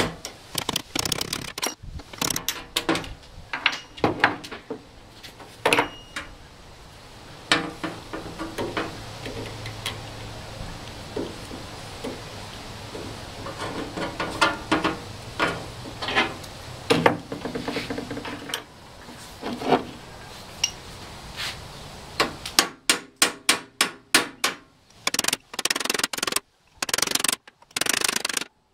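Small hammer striking the steel cabinet and handwheel crank fittings of a Rockwell Model 9 contractor's table saw during disassembly, knocking the crank handles and flanges loose. Irregular single blows with a metallic ring, then a fast run of even taps, about three a second, over the last several seconds.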